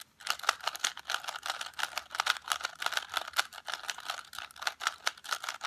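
Plastic twisty-puzzle cube being turned quickly by hand, its layers clicking and clacking in a rapid, uneven run.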